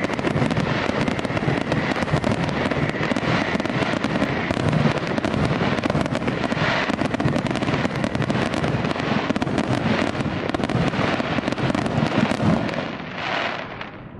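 Aerial fireworks going off in a dense barrage: continuous crackling and popping bursts, with a faint high whistle over the first few seconds. The barrage dies down near the end.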